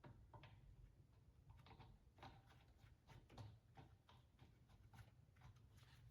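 Near silence with faint, irregular clicks and light knocks of hand tools and axle parts being handled.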